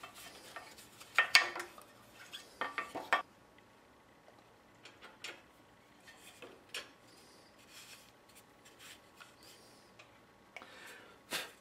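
Irregular scraping, rubbing and light clinks of a pine workpiece and its cut-out piece being shifted and slid about on a scroll saw's metal table, busiest in the first three seconds with a few more knocks near the end.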